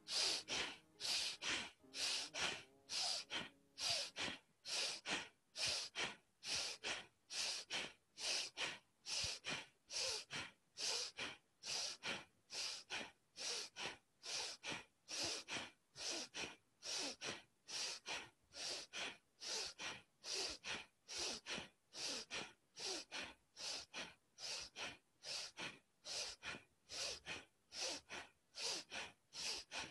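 Bellows breath (Bhastrika pranayama): a woman breathing forcefully in and out through the nose with the mouth closed. It comes as an even, rhythmic train of sharp rushes of air, about two a second, inhales and exhales alternating.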